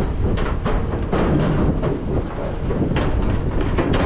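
Footsteps on metal stadium bleacher steps, quick irregular knocks of feet going down the stairs, over a steady rumble of wind on the microphone.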